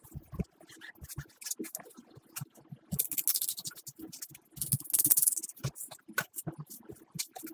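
A knife and gloved hands working a raw whole salmon on a plastic cutting board: irregular clicks and taps of the blade and fish against the board, with wet handling noises. Two longer rasping scrapes come about three and five seconds in, as the blade runs along the bones and the backbone frame is pulled free of the flesh.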